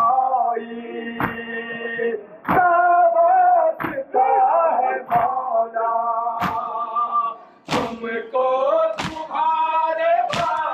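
A male voice sings a Muharram lament (noha) while a crowd of mourners beats their chests in unison in matam. The slaps land together about every 1.3 seconds, keeping time with the singing.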